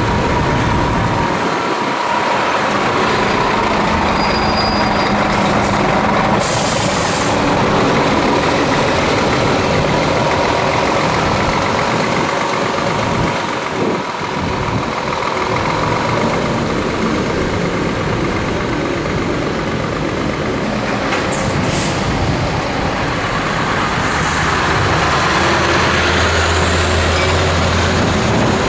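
Scania truck driving on the road: steady engine and road noise, with a few short hisses about a quarter of the way in and again near the end. A low steady hum joins in toward the end.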